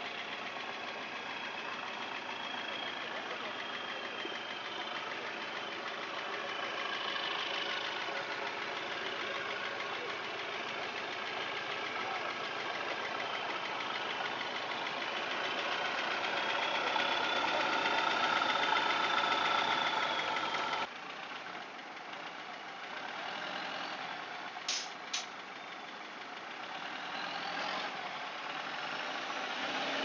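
Off-road 4x4's engine working hard up a steep muddy climb, its pitch rising and falling with the throttle. The sound drops abruptly about two-thirds of the way through, and shortly after come two brief, sharp, high-pitched sounds.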